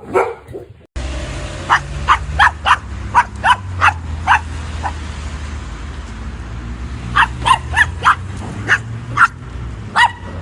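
A dog barking in quick runs of sharp barks, with a pause of a couple of seconds in the middle, over a steady low rumble.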